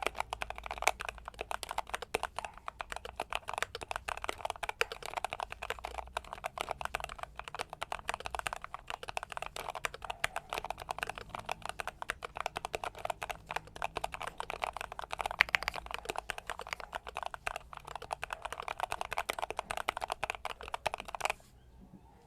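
Fast, continuous typing on a mechanical keyboard fitted with Akko ASA low-profile keycaps and Gateron North Pole switches: a dense stream of keystroke clicks that stops abruptly near the end.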